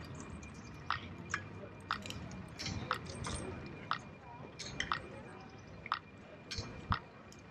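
Bicycle on the move, giving sharp clicks and creaks about once a second over a low rumble of tyres and air.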